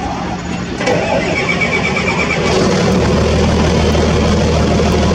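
Heavy diesel engine being started: the starter cranks with a fast pulsing whine for about a second, then the engine catches about three seconds in and settles into a steady idle.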